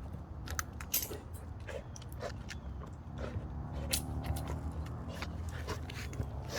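A pit bull puppy chewing, with irregular short clicks and crunches over a steady low rumble.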